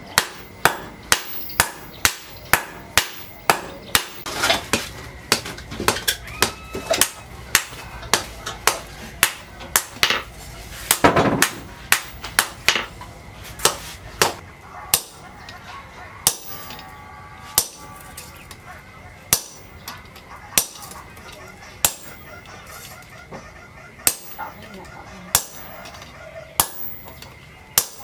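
Hammer blows ringing on steel at an anvil during forging, about two a second for the first half, then slower and scattered. A rooster crows about halfway through.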